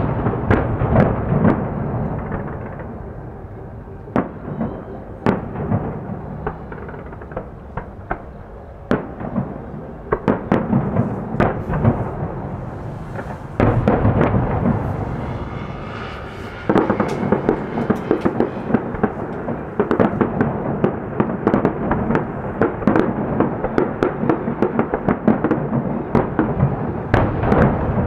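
Fireworks display: shells bursting in a string of bangs with crackling between them. The bursts come thicker and louder from about halfway through.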